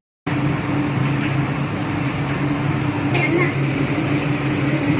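Mustard seeds and dal frying in hot oil in a large iron kadai, sizzling under the steady roar and hum of a commercial kitchen gas burner and fans. It starts abruptly a moment in and holds an even level throughout.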